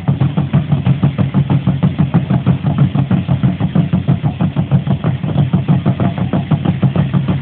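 Drumming for Aztec ceremonial dance: a drum beaten in a fast, steady, unbroken rhythm of about four or five beats a second.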